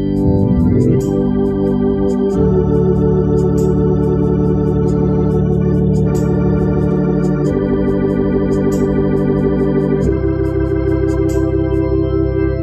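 Hammond organ playing sustained chords on the manuals over low bass notes from the foot pedals. The chords change about two, seven and a half and ten seconds in.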